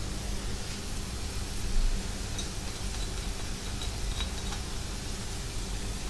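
Stir-fry of angled luffa, egg and minced pork sizzling gently in a nonstick pan: a steady soft hiss, with a couple of faint clicks.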